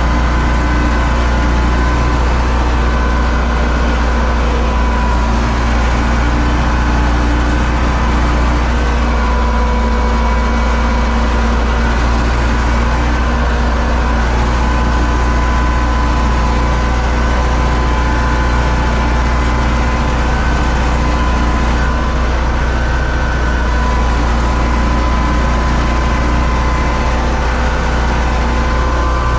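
U650 tractor's four-cylinder diesel engine running steadily at working speed while pulling a planter, heard from inside the cab, with a deep hum and an even level throughout.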